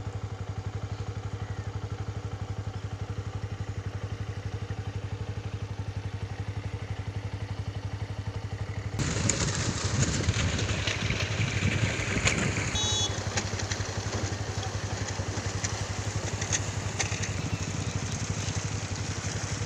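A small engine idling steadily, with a fast even pulse. About nine seconds in, the rush of flowing floodwater joins it.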